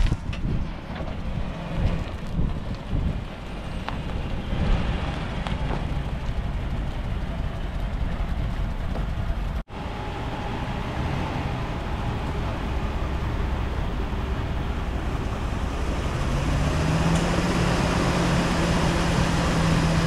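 Wind gusting and rumbling on the microphone. After a sudden cut about halfway through, a steady even noise takes over, and a low steady hum joins it for the last few seconds.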